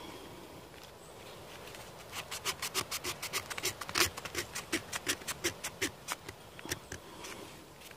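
Knife blade scraping a sheet of birch bark in quick short strokes, about five a second, for some four seconds, then a few slower strokes. This is the bark being scraped up into tinder for a fire.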